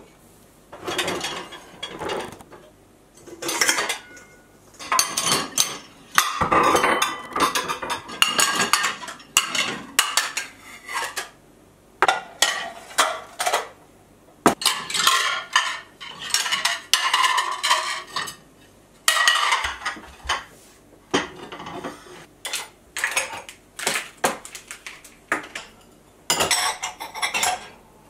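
White ceramic plates and bowls clinking and clattering as they are taken out of a dishwasher and stacked on a kitchen counter: a run of irregular clinks with short pauses between them.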